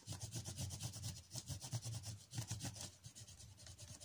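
Coloured pencil shading on paper: a faint, rapid scratchy rubbing of quick back-and-forth strokes, several a second.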